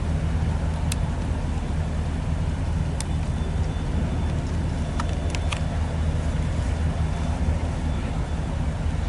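Freight cars rolling slowly past on the track: a steady low rumble, with a few sharp metallic clicks scattered through it.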